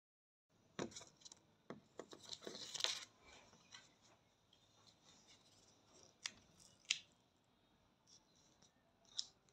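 Quiet handling sounds of a ready-to-use wax strip being readied and pressed onto the skin: a short run of rustling and crinkling about two to three seconds in, then a few sharp clicks and taps.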